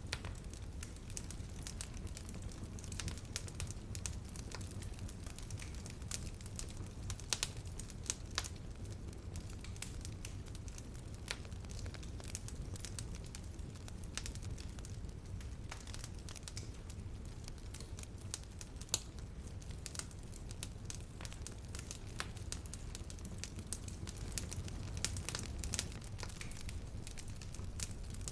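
Wood fire burning in a fireplace: a steady low rumble of flames with sharp, irregular crackles and pops.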